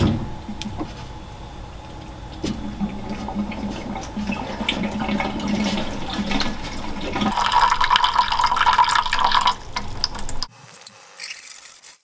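A thump as a service valve is turned, then water rushing out of a Rinnai tankless water heater through its opened service valves and drain hoses as the unit is drained. The flow builds and grows louder, then cuts off suddenly near the end.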